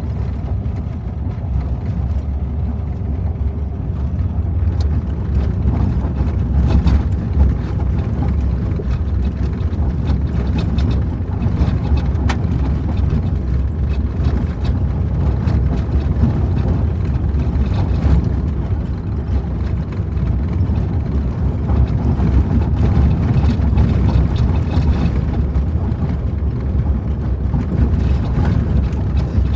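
Vehicle driving along a gravel road, heard from inside the cab: a steady low rumble of tyres and engine, with scattered short ticks throughout.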